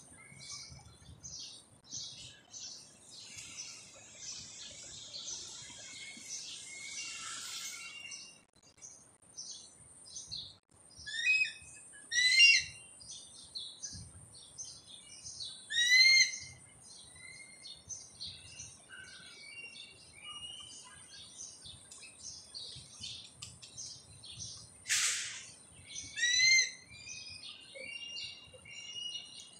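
Birds calling: a steady scatter of short, high chirps from small birds, broken by four louder, harsh calls that drop in pitch. Two of those calls come close together near the middle, one a few seconds later and one near the end, with a brief loud hiss just before the last.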